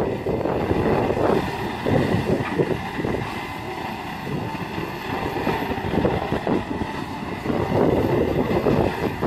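Kobelco SK210LC-10 long-reach excavator running: its diesel engine and hydraulics work as the machine swings with its boom and arm raised. The noise rises and falls unevenly throughout.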